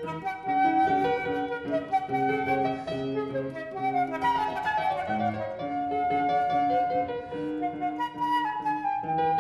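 Instrumental background music: a melody of held notes over a low bass line, going on steadily.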